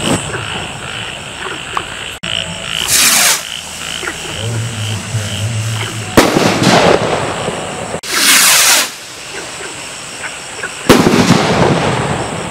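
Firework rockets from an eight-piece 1.3G rocket pack fired one after another. Each goes up with a short hissing whoosh and bursts about three seconds later with a sharp bang and a trailing crackle, twice.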